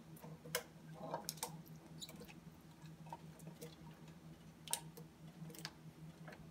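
Faint, irregular clicks and taps of a silicone spatula scraping chopped bell pepper off a plate, the pieces dropping into a pan of sauce, over a low steady hum.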